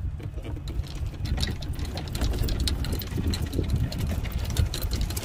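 Golf cart running across the fairway: a steady low motor rumble with a rapid clatter of rattles that starts about a second in.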